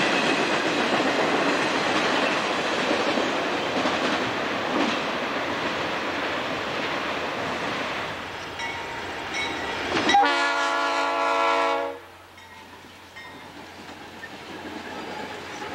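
Freight cars rolling past over a grade crossing, the noise fading as the end of the train goes by. About ten seconds in, a locomotive air horn sounds one blast of nearly two seconds, cut off abruptly, leaving a quieter rumble.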